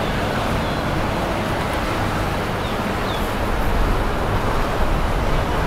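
Tecnomar Evo 55 motor yacht passing under way: its engines running with water rushing along the hull, a steady deep rumble.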